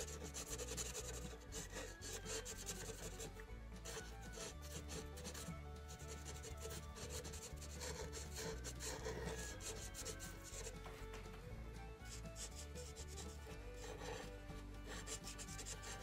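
Felt-tip marker rubbing on paper in quick, repeated short strokes as it colours in a small area.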